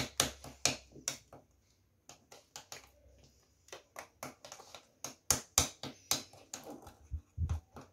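A utensil mashing and stirring soft processed cheese into a yogurt cream in a ceramic bowl, clicking and scraping against the bowl in quick, irregular strokes, with a brief lull about a second and a half in.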